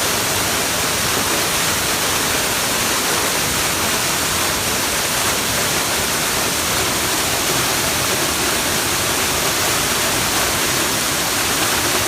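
Waterfall: water falling and crashing in a steady, unbroken rush of noise.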